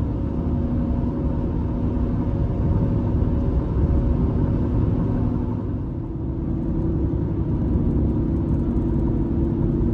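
A vehicle engine running steadily, with a dense low rumble and a constant hum.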